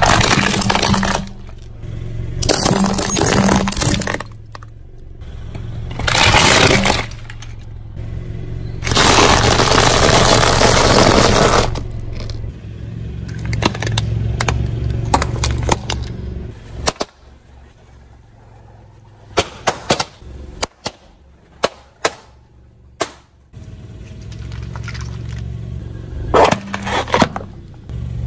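Vehicle tyres rolling over and crushing brittle objects: repeated bursts of crunching and breaking over a low engine hum, the longest lasting about three seconds, then a run of sharp single cracks and snaps.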